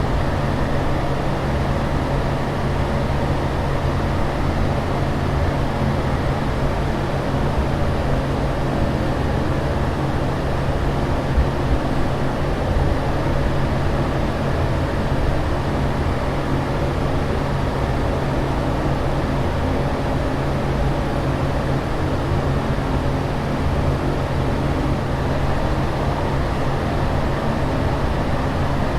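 Steady cabin noise of an airliner in flight: a constant rush of air with a low, even hum underneath, unchanging throughout.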